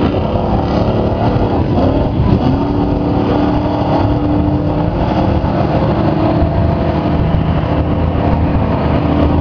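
Big-block 496 V8 truck engine running hard under load while the truck churns through deep mud and water. The engine note stays fairly steady.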